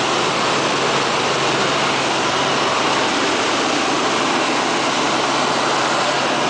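Helicopter engine and rotor noise heard inside the cabin: a loud, steady rush with a constant low hum underneath.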